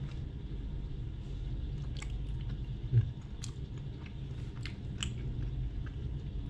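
A man chewing a mouthful of soft bread (roti gambung), with scattered small mouth clicks over a steady low hum. A short thump about three seconds in.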